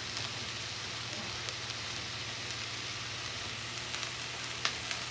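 Peppers, onions and mushrooms sizzling in a cast iron skillet as they sweat, an even, steady frying hiss, with a faint low hum underneath.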